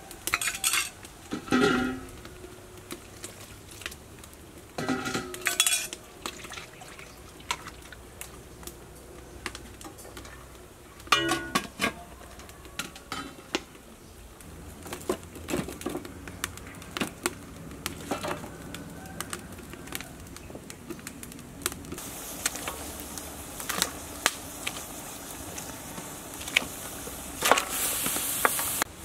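Stainless-steel cooking pots, lids and utensils clanking and clinking, with several ringing metal strikes. From about three-quarters of the way through, a steady hiss of a pot of meat boiling and steaming comes in.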